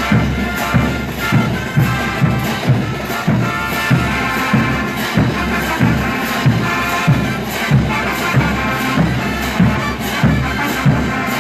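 Mexican banda music: brass and clarinets playing sustained melody lines over a tuba bass and a steady drum beat, about two beats a second.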